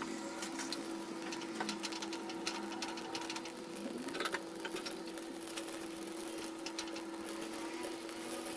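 Carom seeds (ajwain) crackling and popping in scattered small clicks as they dry-roast in a hot clay pot, over a steady hum.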